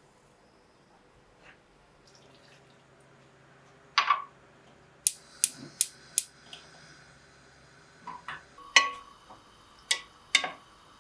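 Dishes and cutlery clinking: about ten sharp clinks and taps, some with a brief ring, starting about four seconds in.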